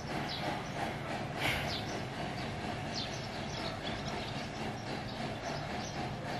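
Repetitive noise from the neighbours, which she takes to be building work: the same sound over and over with no let-up, with faint high scratchy strokes recurring about once a second over a steady background noise.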